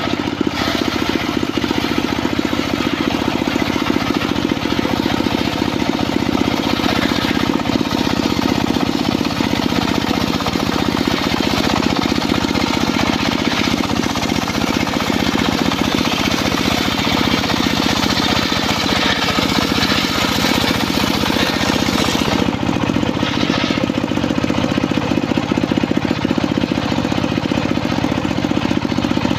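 Homemade engine-driven circular saw bench ripping a long, very old mahogany beam: the engine runs steadily under load with a fast, even pulse while the blade cuts through the wood.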